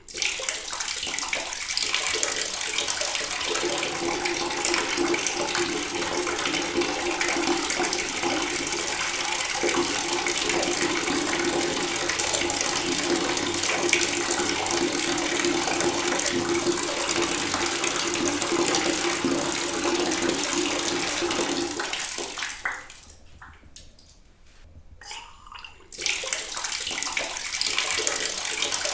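Water running from a tap in a steady stream with a faint steady tone under the splashing; the flow dies away a little after twenty seconds in, and about three seconds later it comes back on at full flow all at once.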